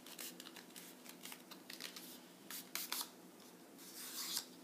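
A paper strip being folded and creased by hand: crisp rustles and crackles, a few louder ones about three seconds in and near the end.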